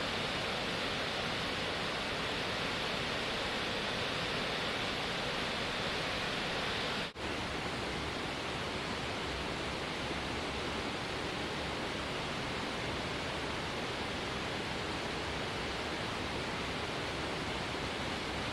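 Waterfall roaring steadily, an even rush of falling water, with a split-second break about seven seconds in.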